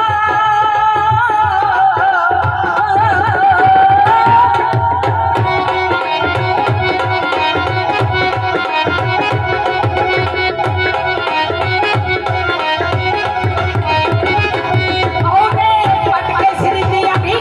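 Live Punjabi folk music through a PA: a dholak keeps a steady beat under steady held instrumental tones, and a woman sings long wavering notes in the first few seconds and again near the end.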